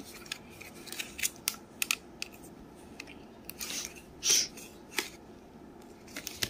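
Scattered light clicks and knocks of plastic Godzilla action figures being handled and posed, with a brief louder rustling swish about four seconds in.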